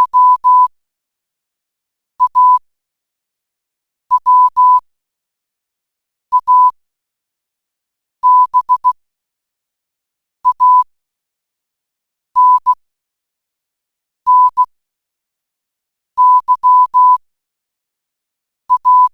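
Morse code played back by an online text-to-Morse converter: beeps at one steady pitch, short and long, grouped into letters with a pause of about two seconds between each group.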